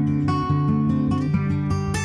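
Background music with strummed acoustic guitar chords, a chord change every fraction of a second.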